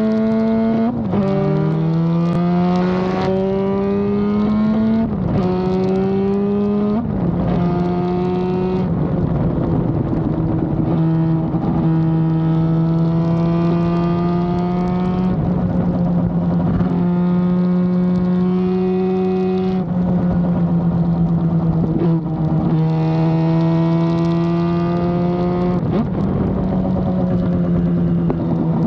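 Norton RCW588's freshly built twin-rotor Wankel rotary engine at racing speed, heard from on board the bike. The pitch climbs steadily through each gear and drops sharply at each gear change, about a dozen shifts, with a few longer stretches held at a steady pitch.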